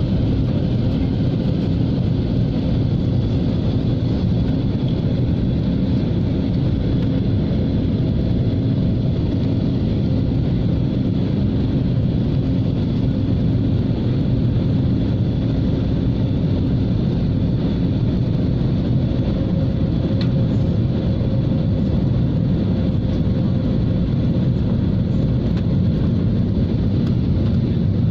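Airliner cabin noise during descent: the steady low rumble of airflow and jet engines heard from inside the cabin, with a faint steady hum riding on it.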